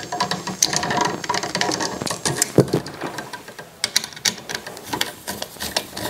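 Irregular small clicks and scrapes of a screwdriver turning a brass terminal screw on an electrical outlet, with the plastic outlet and its wires being handled.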